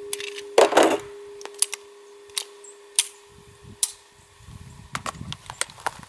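Semi-automatic pistol being handled to clear a spent case that failed to extract: one loud metallic clack about half a second in, then a string of small clicks from the slide and action. The stoppages come from loads too light to cycle the action.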